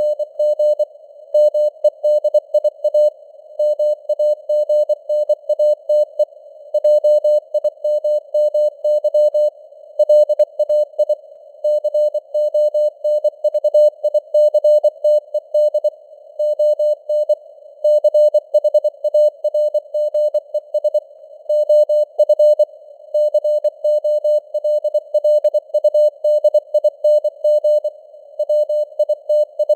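Morse code (CW) sent at 24 words per minute as a mid-pitched tone keyed on and off in quick dots and dashes. Simulated radio hiss sits around the tone, and the signal strength varies as simulated fading (QSB).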